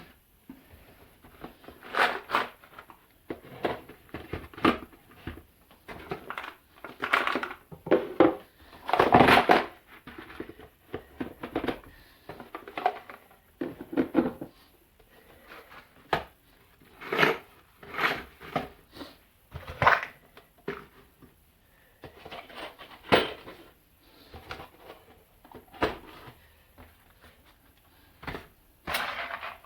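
Irregular knocks and clatters of hard objects being handled and set down, a couple of seconds apart, some sharp and some longer rattling.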